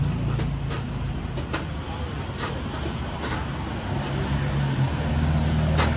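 Road traffic: a heavy vehicle's engine running with a low, steady hum that shifts in pitch, and scattered sharp clicks, one louder near the end, over faint background voices.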